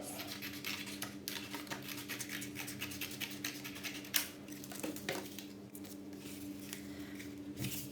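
Scissors cutting through thin cereal-packet card, giving irregular snips and crisp clicks, with a louder snap about four seconds in, over a steady low hum.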